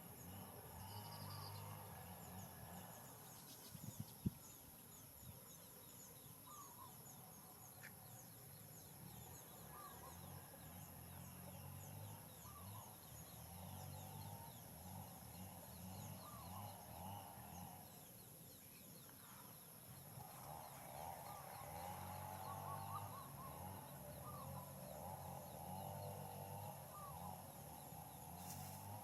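Faint outdoor background with short, rising animal chirps repeated every second or so, and one small knock about four seconds in.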